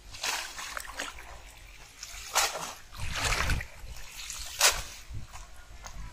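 A gathered cast net holding mud and fish is swished through shallow muddy water to rinse it, splashing and sloshing in several bursts. The sharpest splashes come about two and a half seconds in and again about four and a half seconds in.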